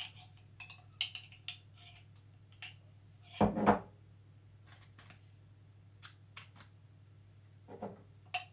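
A metal teaspoon clinking and scraping inside a glass jam jar as the last of the raspberry jam is scooped out. It comes as scattered light clicks, with one louder, duller knock about three and a half seconds in.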